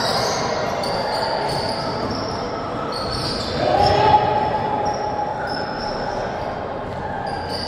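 Basketball game in play on an indoor court: the ball bouncing and players' voices, with one louder held call about halfway through.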